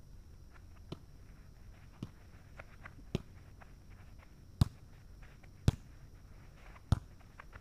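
Volleyball being passed back and forth between two players: sharp slaps of the ball off hands and forearms, about one a second, six in all, the last three loudest.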